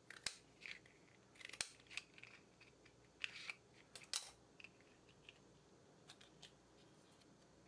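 Scissors snipping through the plastic hull of an empty 12-gauge shotgun shell: a series of sharp, quiet snips and clicks, the loudest in the first half, with fainter ones later.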